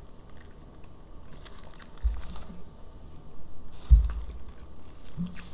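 Close-up chewing and biting of a Burger King Whopper, with small wet mouth clicks. Two dull low thumps come about two seconds in and, louder, near four seconds in.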